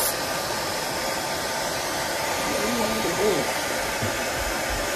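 Handheld hair dryer running steadily, blowing on a lace wig's hairline to dry the spray used to lay the lace.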